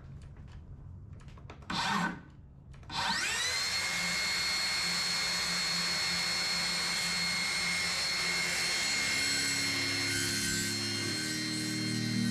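Circular saw spinning up with a rising whine about three seconds in, then running steadily as its blade cuts along a fiberglass panel.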